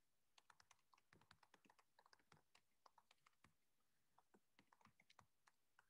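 Very faint typing on a computer keyboard: a fast, irregular run of key clicks.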